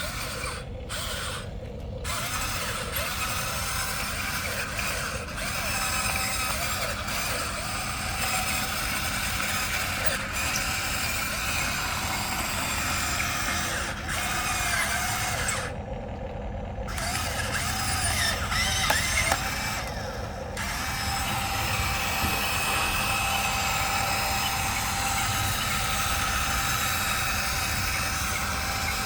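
Electric motors of a Huina remote-control toy excavator running, whining as they move the arm and tracks, with short rising and falling changes in pitch.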